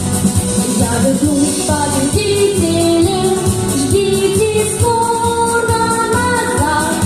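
A song performed live: a voice singing a melody over an instrumental backing track with a steady beat.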